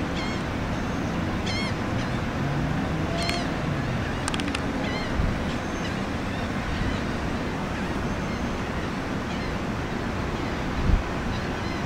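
Steady wind and open-air noise on a ship's deck, with a few short, wavering high calls and two low thumps, one about five seconds in and one near eleven seconds.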